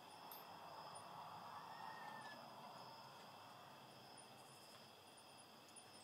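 Near silence with faint steady cricket trilling, and a soft rustle in the first half.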